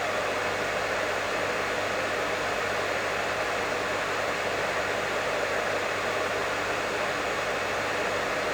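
Professional hair dryer running continuously: a steady, even rush of air with a faint low hum from its motor.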